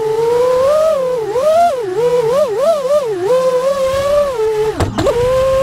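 Diatone Roma F5 five-inch FPV freestyle quadcopter's brushless motors and propellers whining, the pitch rising and falling quickly with throttle. About five seconds in the pitch drops sharply and climbs back, then holds steady.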